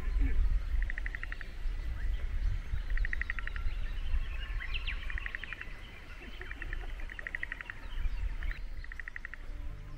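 Frogs in flooded rice paddies calling in short pulsed trills, each about half a second of quick clicks, repeated every second or two as a chorus, over a steady low rumble.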